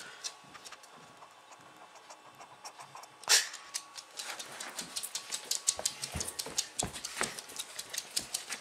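Small dog's claws clicking and scrabbling on a hardwood floor, sparse at first and quick and busy in the second half. There is one loud, brief burst about three seconds in.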